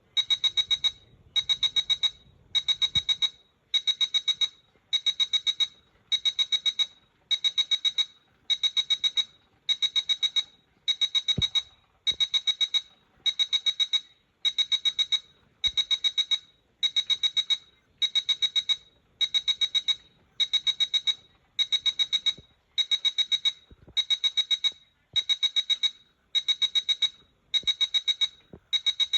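Corise KS728 mobile phone's loudspeaker playing a beeping alert tone: short bursts of rapid high-pitched beeps repeating steadily, about one burst every 1.2 seconds.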